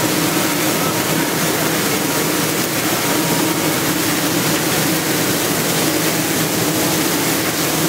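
Ginger washing machine running: water sprays falling onto ginger while a spiral paddle auger turns, a steady rush of water over a constant low machine hum.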